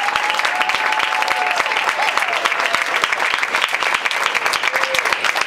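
Small audience clapping steadily in applause for an award winner.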